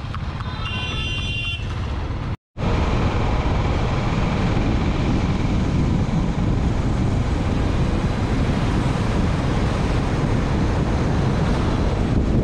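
Motorcycle riding along a road: engine, tyre and wind noise on the bike-mounted camera's microphone. A short high tone sounds near the start. After a momentary dropout about two and a half seconds in, the rushing noise is louder and steadier.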